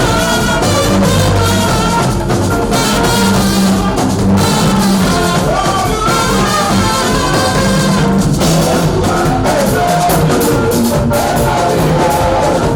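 Loud band music with a drum kit and singing voices.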